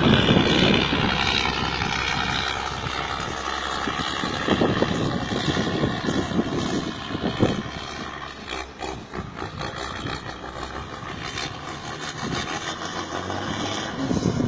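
Heavy diesel dump truck engine running with a steady drone and a faint whine that slowly drops in pitch, with a few brief thumps.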